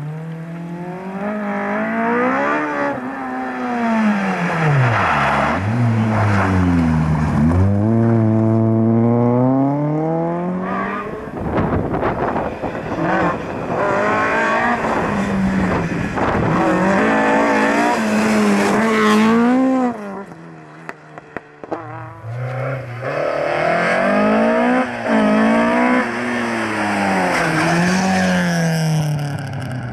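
Several rally cars, Ford Escort Mk2s among them, driven flat out one after another. The engines rev high and drop sharply again and again through the gear changes, with a brief lull about two-thirds of the way through.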